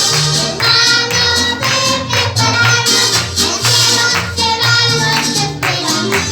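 Upbeat song: several voices singing together over a tambourine keeping a steady beat and a bass line.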